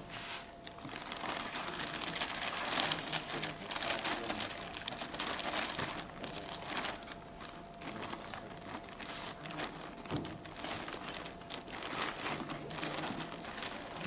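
Clear plastic bag crinkling and rustling in irregular bursts as hands work a salted raven inside it.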